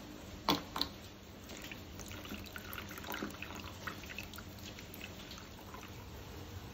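A plastic measuring spoon knocks twice against a glass bowl. Then a little water is added and stirred with the spoon into a curd and spice paste, making small wet splashes and clicks.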